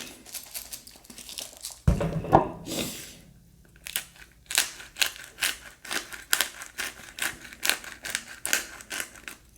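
Close-miked eating of seasoned watermelon: a bite about two seconds in, then steady crunchy chewing at about two to three chews a second.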